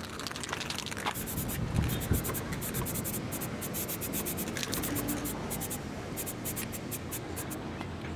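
Aerosol spray paint can hissing in many short, quick bursts, thinning out near the end.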